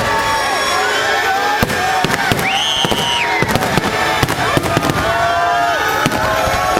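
Fireworks bursting in quick succession, a dense run of bangs over the voices of a large crowd, with a brief high whistle about two and a half seconds in.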